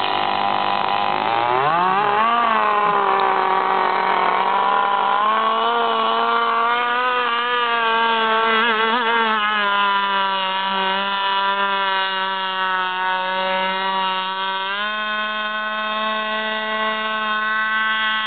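Gas-powered RC boat's small two-stroke engine running hard across the water, its pitch climbing about two seconds in, wavering, settling a little lower, then stepping up again near the end as the throttle changes.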